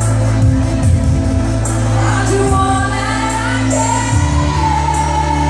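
A woman singing live into a microphone over loud backing music with a steady bass line and light drum beats, heard through a hall's sound system; she holds a long note near the end.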